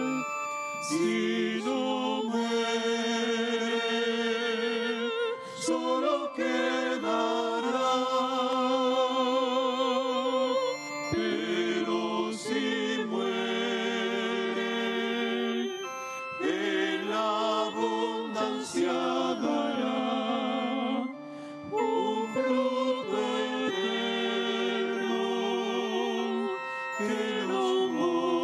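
Offertory hymn being sung: a voice with strong vibrato holding long notes in phrases of about five seconds, with short breaks between them.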